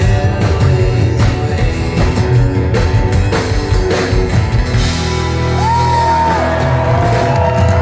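Live rock band playing with a singer: drum hits drive the first few seconds, then the band settles on a held chord with a long sung note.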